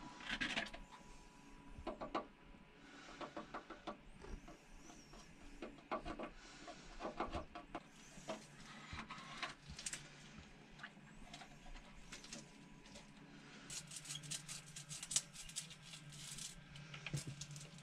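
Faint, scattered clicks, taps and scrapes of hand work as epoxy is brushed and dabbed into the pitted aluminium floor of a boat's engine compartment, busier near the end.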